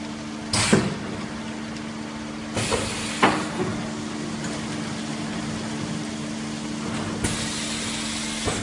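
MAP vacuum tray-sealing packaging machine running with a steady hum. Hisses of air with sharp clanks come about half a second in and twice around three seconds in, and a longer hiss starts about seven seconds in as the sealing station cycles and the sealed wraps come out.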